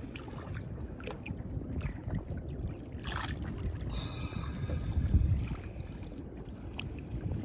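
Choppy seawater lapping and slapping against a small inflatable boat, with scattered small splashes and wind buffeting the microphone.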